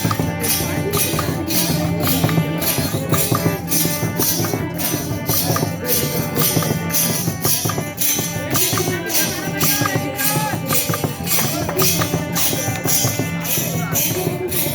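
Music with a steady beat of short, high, jangling percussion strokes, a little over two a second, over a sustained low tone, with melodic lines gliding above.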